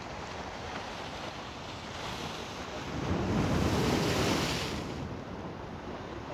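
High-tide waves breaking against a rock and concrete-block seawall. One wave builds from about two seconds in, crashes with spray, the loudest moment, then the roar fades back.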